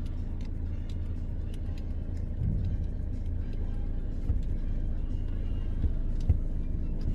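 Car running, a steady low rumble with a few light clicks scattered through.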